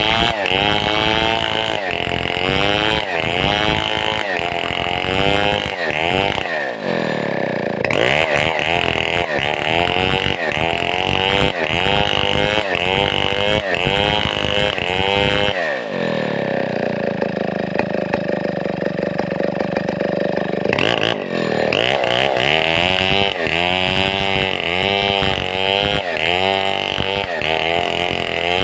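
Stihl 070-pattern two-stroke chainsaw revving up and down over and over, about once every second or less. Twice it settles to a lower, steady idle, briefly near the start and for several seconds in the middle, before the revving picks up again.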